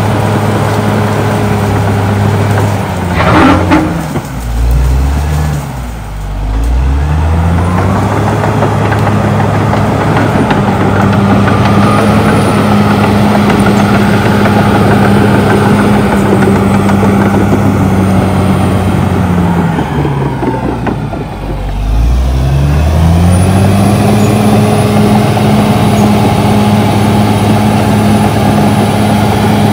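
Caterpillar D6R XL bulldozer's diesel engine running steadily under load. Twice, about four seconds in and again around twenty seconds, the engine speed drops sharply and climbs back. A brief loud burst of noise, the loudest moment, comes about three seconds in.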